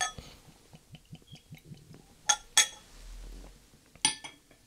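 Bourbon poured from a glass bottle into a stemmed nosing glass: a glass clink at the start, faint small ticks of the pour, two sharp ringing glass clinks a little after two seconds, and another clink about four seconds in as the filled glass is set down on the table.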